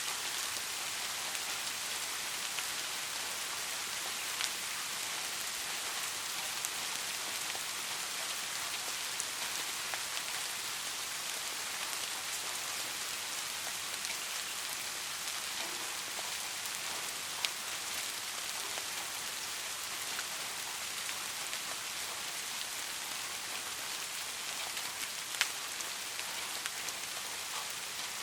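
Steady soft rainfall, an even hiss of many drops, with a few sharper single drop ticks standing out, the clearest near the end.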